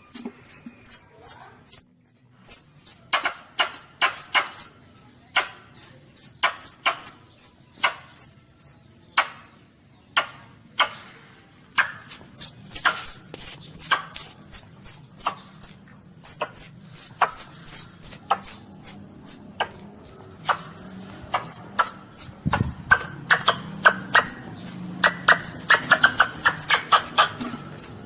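Baby Asian palm civet (luwak) calling: a long fast series of short, high squeaks, about two a second, with a brief pause about nine seconds in. This is a master call recording used to lure civets when hunting.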